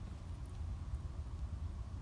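Room tone: a steady low hum with no other sound.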